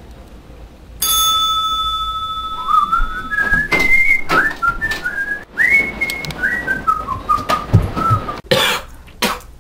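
A held high whistle-like tone starts suddenly about a second in, then a whistled tune slides from note to note. A few loud knocks or thuds come near the end.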